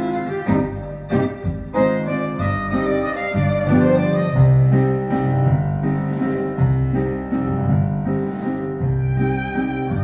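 Classical music for violin and piano with a lower bowed string, played back on a hi-fi system. Piano notes are struck in the first seconds, and long held low string notes come in about four seconds in.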